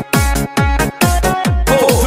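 Electronic dance music with a steady kick-drum beat and synth notes.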